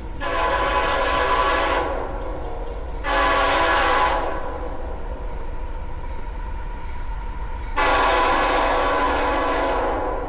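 Freight locomotive's air horn sounding three blasts, the second short and the last the longest, over a steady low rumble from the approaching train.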